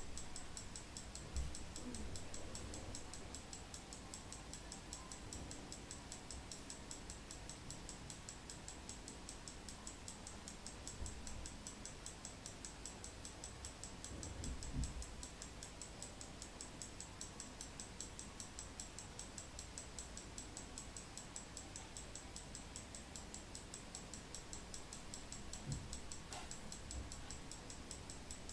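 Slava 11-jewel mechanical alarm clock ticking fast and evenly, a crisp metallic tick several times a second. A few soft low knocks are heard now and then.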